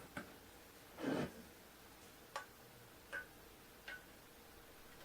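A few light clicks and taps of small hardware being handled, an M.2 NVMe SSD being fitted into its slot on the board, with one louder short rub about a second in.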